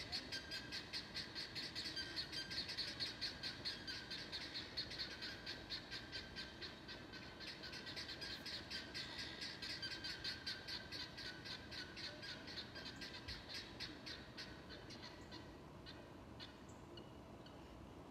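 Outdoor summer animal chorus: rapid, evenly pulsed high chirping that fades away about fifteen seconds in, followed by a few short, faint chirps.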